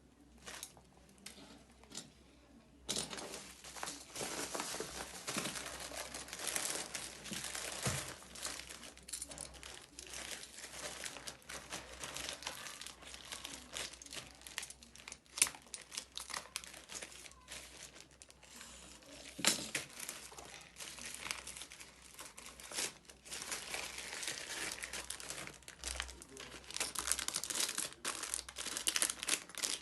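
Packaging crinkling as it is handled and unwrapped by hand. A few light clicks at first, then near-continuous crinkling from about three seconds in, with occasional sharper crackles.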